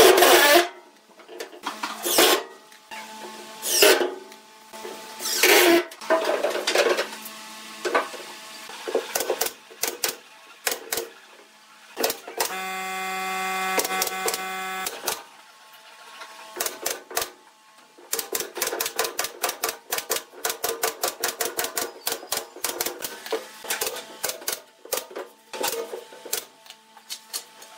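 Cordless impact driver driving screws into a pine frame in several short bursts. In the second half comes a quick, even series of sharp shots, about three or four a second, from a pneumatic nail gun fastening the pine slats.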